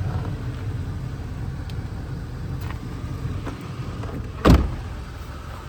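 A truck door slammed shut once, loudly, about four and a half seconds in, over a low steady rumble, with a few faint clicks before it.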